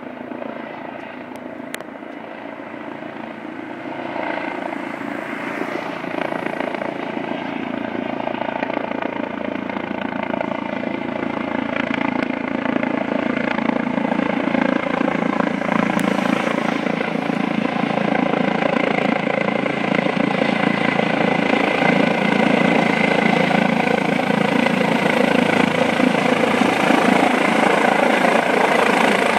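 Eurocopter EC 135 twin-engine helicopter approaching to land, its rotor and turbine sound growing steadily louder as it comes closer. A steady hum of several tones runs through the rotor noise.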